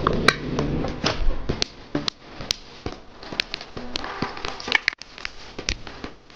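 Irregular light clicks and knocks of parts being handled and set down on a workbench, a few sharper than the rest.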